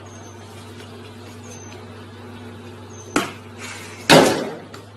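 Outdoor recording with a steady low hum and faint short high chirps, broken about three seconds in by a sharp knock, then a louder noisy thump-and-rattle about a second later.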